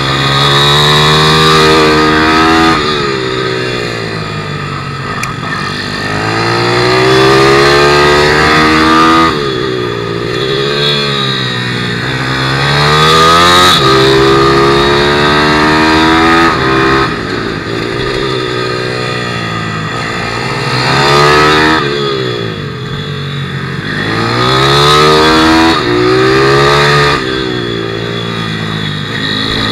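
A 160cc pit motard's single-cylinder four-stroke engine, heard from onboard at race pace. Its revs climb hard through the gears, with sharp breaks at the shifts, then fall away as the rider rolls off for each corner. The cycle repeats several times.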